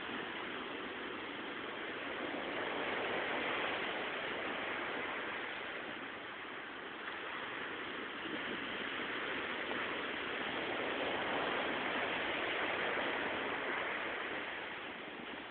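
Sea waves washing onto the shore: a steady rush of surf that swells and ebbs slowly, loudest about three to four seconds in and again around eleven to thirteen seconds in.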